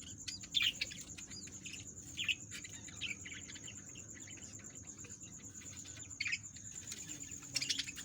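Baby parrot chicks giving short, high chirping calls every second or two, with a steady high-pitched ringing tone in the background.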